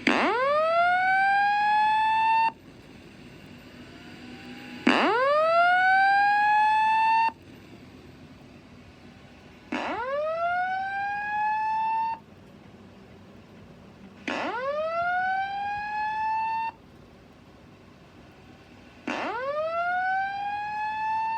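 System Sensor SPSR fire-alarm speaker strobe sounding a whoop evacuation tone: five rising sweeps, each about two and a half seconds long, that climb steeply then level off, repeating about every five seconds with short silences between. The first two whoops are louder than the last three.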